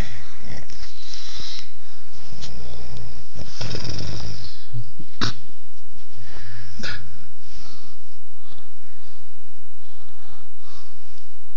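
A woman snoring loudly in uneven breaths, with a few sharp, short snorts.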